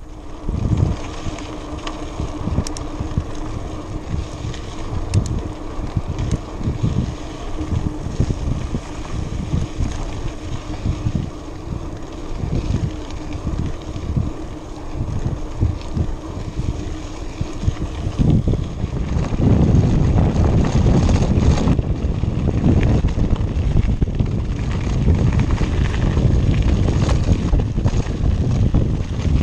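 Wind buffeting the microphone of a camera on a moving mountain bike on a dirt road, with a faint steady hum under it. About two thirds of the way through the wind rush grows louder and heavier.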